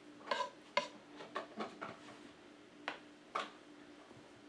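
Close-miked chewing of vegetable pancake: an irregular run of short wet mouth smacks and clicks, several in a few seconds, over a faint steady hum.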